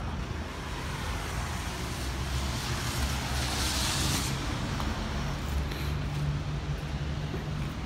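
Distant street traffic: a steady low engine hum, with a hiss that swells and fades about three seconds in.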